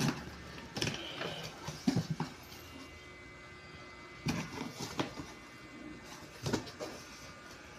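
Scattered knocks, clicks and rattles of a PC case and its panels being handled, about half a dozen sharp hits spread irregularly over the stretch.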